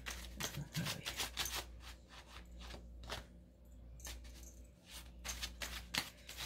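A deck of tarot cards being shuffled by hand: quick runs of soft clicks and slaps as the cards are cut and mixed, with a short pause about three seconds in.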